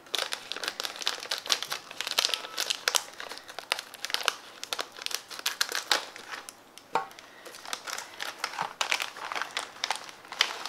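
Crinkly plastic wrapper of a candy kit being cut open with scissors and handled: a dense run of small crackles and snips.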